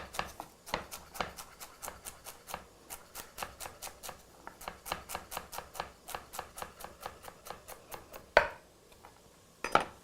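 Kitchen knife chopping vegetables on a cutting board: quick, even strokes that speed up to about four or five a second after a few seconds, then two louder knocks near the end.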